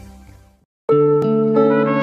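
Music fades out to a brief silence. A little under a second in, music with long held brass notes starts suddenly and loud, moving in steps from one chord to the next.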